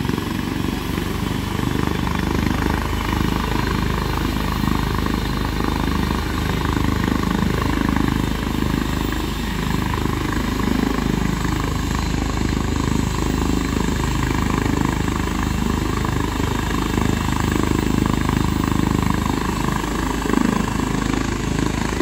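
Air ambulance helicopter sitting on the ground with its engines running: a steady turbine and rotor sound that holds level throughout.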